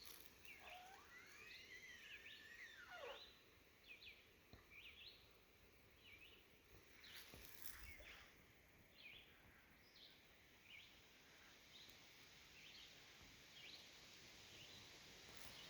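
Faint, high-pitched calls from an unseen animal in a tree. A long wavering call rises and falls in the first few seconds, then short chirps follow about once a second.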